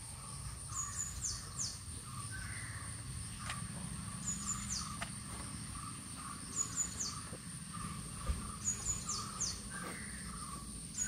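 Birds calling. A high phrase of a few short notes followed by quick falling whistles repeats about every two seconds, over lower calls that keep repeating and a steady thin high-pitched whine.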